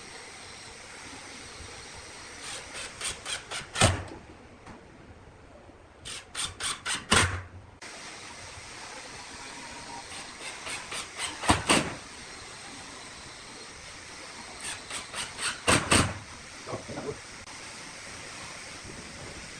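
Hammering on wood: four runs of quick strikes, each run building to a heavy final blow, over a steady hiss.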